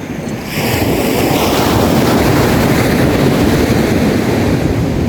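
Sea waves breaking and washing up a beach, swelling about half a second in, with wind rumbling on the microphone.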